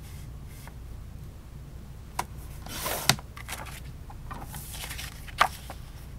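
A Fiskars sliding paper trimmer cutting cardstock: the blade carriage is pushed along the rail in a short, rising scrape that ends in a sharp click about three seconds in. Near the end the paper is slid across the trimmer base, followed by another sharp click.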